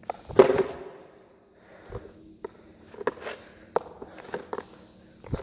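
Cruiser skateboard rolling on a concrete floor. About half a second in comes a loud scuff of a shoe pushing off the ground, followed by scattered sharp clicks and knocks.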